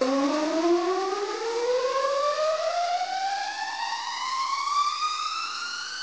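DJ sound effect played through an LG XBOOM CL87 hi-fi system: one tone with its overtones, starting suddenly and rising slowly and steadily in pitch over about six seconds.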